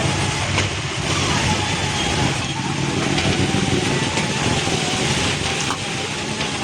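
Steady running noise of motor vehicle engines, with a faint wavering whine and a few sharp clicks.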